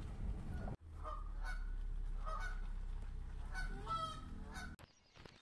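Canada geese honking, about six short calls, over the steady low hum of a car's engine.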